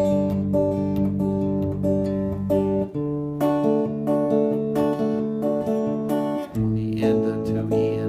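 Clean electric guitar fingerpicked: a thumbed bass note under repeated plucked double stops, moving to a new chord about three seconds in and again near the end.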